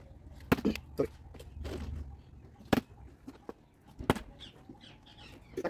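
Faint voices in the background, broken by four sharp knocks spread through the few seconds.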